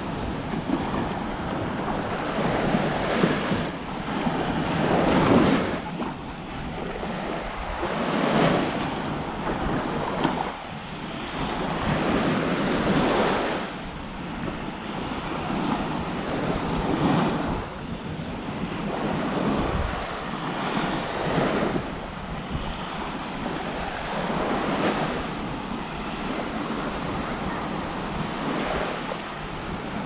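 Small waves breaking and washing up on a sandy shore, the surf swelling and falling back every three to four seconds, with wind buffeting the microphone.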